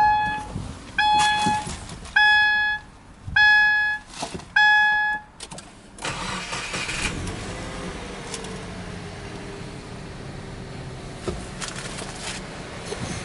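A car's cabin warning chime beeps five times, about a second apart. About six seconds in, the Subaru Impreza G4's 1.6-litre flat-four starts and settles into a steady idle, heard from inside the cabin.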